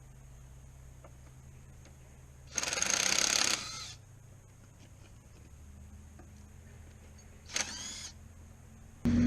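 Ratchet wrench clicking in two short spells, the first about a second long and the second about half a second, as the valve cover bolts on a small-block Chevrolet are run out. Just before the end, a loud engine starts running.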